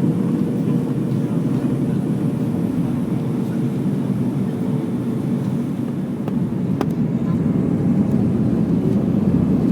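Steady jet-engine and airflow noise heard inside the cabin of an Airbus A319 on approach, growing a little louder in the last few seconds, with a single short click partway through.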